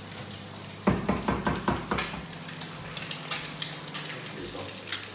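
Eggs frying in rapeseed oil in a frying pan, the oil sizzling and crackling. About a second in, a quick run of knocks and scrapes from a utensil in the pan.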